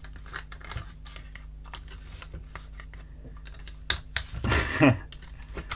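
Light, irregular plastic clicks and taps from a toy robot hand as its fingers grip a round disc and it is moved about over a wooden board. About four and a half seconds in, a short voiced sound from a person is the loudest thing.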